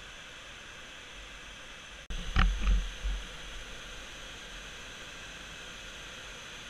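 Steady rush of white water pouring over Big Falls on the Cuyahoga River at low water. About two seconds in, a few loud low thumps break in briefly over it.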